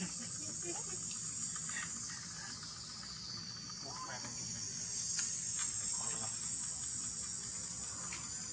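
A steady, high-pitched chorus of insects buzzing in the forest, with a couple of faint short calls about four and six seconds in.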